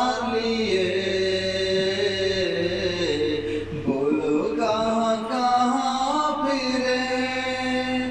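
A man singing a slow melody in long, held notes that glide between pitches, with no clear words, in two phrases with a brief break about four seconds in.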